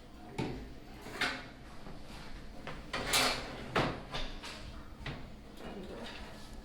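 A 650-watt PC power supply being slid and set into a computer case: a series of short scrapes and knocks, the loudest a little past three seconds in.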